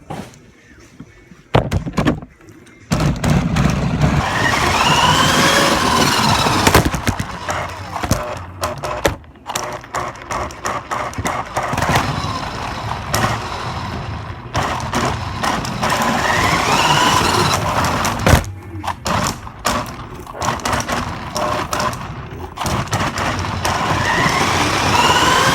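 RC car driven at top speed: the motor's whine rises and falls with each of three runs over loud tyre noise. Sharp knocks and thuds come in between as it hits the bumps.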